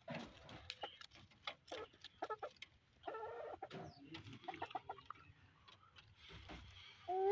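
Domestic chickens, a rooster and hens, clucking, with quick clicks and rustling as they peck at a leafy branch held against the wire mesh. A short call comes about three seconds in, and a louder call starts at the very end.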